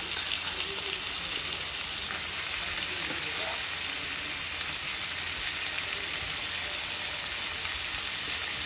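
Marinated chicken pieces and chopped onion sizzling steadily in hot sunflower oil in a kadai over a high gas flame. This is a dry, hissing fry that browns the chicken instead of letting it release water.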